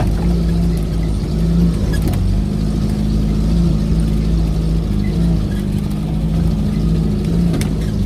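Suzuki Jimny engine running steadily at low revs under load while driving off-road, its pitch wavering slightly. A few brief knocks are heard about two seconds in and again near the end.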